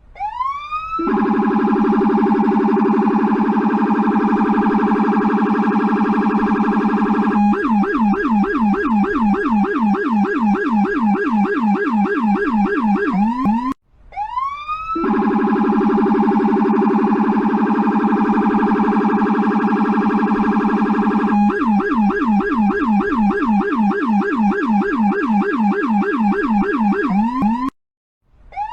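US police car siren running through its modes twice. Each time it winds up rising, holds a steady wail for about six seconds, then switches to a fast yelp of about four swoops a second, cutting out briefly before the next wind-up.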